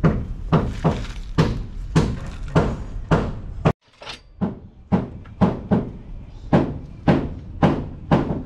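Heavy hammer blows on the truck's metal wheel-end parts, evenly paced at about two a second, with a short break about halfway through.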